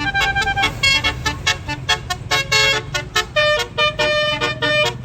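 Basuri telolet horn on a tour bus playing a quick tune of short, stepped notes, with the bus engine running underneath.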